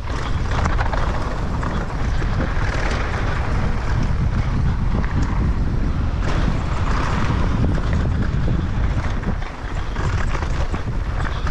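Wind buffeting a GoPro's microphone during a fast mountain-bike descent, with the tyres crunching over dry, dusty dirt and loose stones and the bike rattling.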